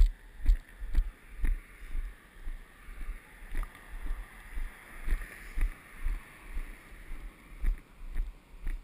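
Walking footsteps, about two a second, each one a dull thump on the body-worn camera. A car passes on the road, its tyre hiss swelling and fading about halfway through.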